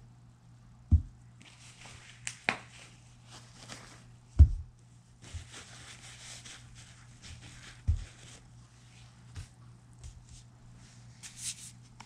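Acrylic paint bottles being handled and opened on a table: a few sharp knocks and clicks, with rustling in between.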